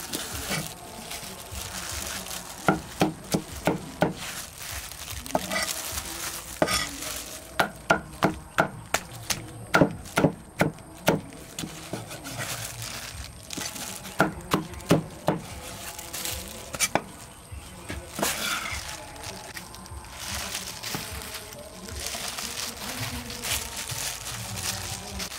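Heavy cleaver chopping through braised pork leg into a thick round wooden chopping block: runs of sharp knocks, about four or five a second, with pauses between runs.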